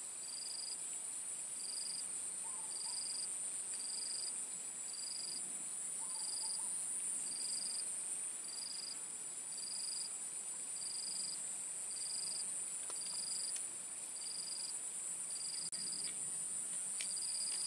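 Insects calling in chorus: a steady high-pitched drone, with a separate short chirp repeating evenly a little faster than once a second.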